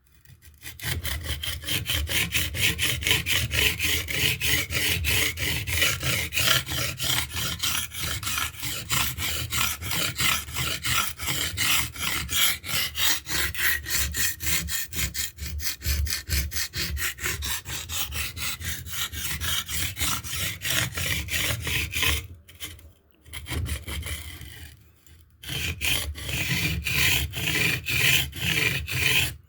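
Steel knife blade scraping back and forth on a wetted limestone sharpening stone in quick, even strokes, with two short breaks near the end.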